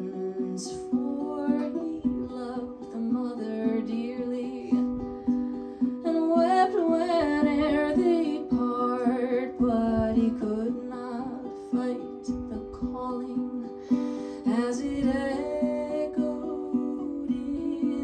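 Folk ballad's instrumental passage: plucked acoustic strings with a wavering melody line above them.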